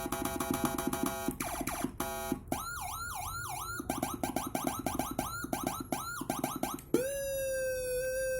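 CJB200W electronic siren cycling through its tones, with a jumper fitted. First a fast pulsing tone, then rapid up-and-down sweeps about twice a second, then quick chirps about four a second. About seven seconds in, it switches to a single held tone that slowly falls.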